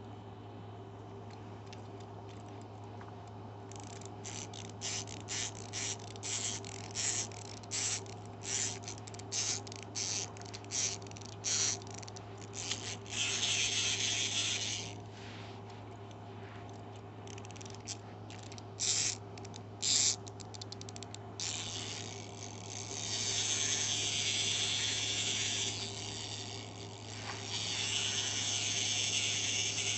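Clockwork wind-up toy robot dog being wound and run. The winding key's ratchet clicks about one and a half times a second, then the spring motor whirs for a couple of seconds. After more winding clicks, the clockwork runs again twice in longer stretches near the end.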